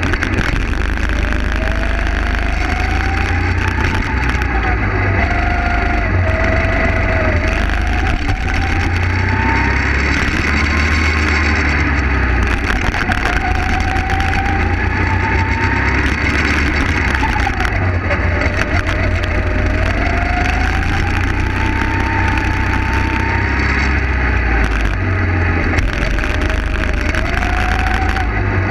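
Go-kart engine heard onboard, its revs climbing over several seconds as the kart accelerates down each straight and then dropping sharply into each corner, about five or six times, over a deep rumble.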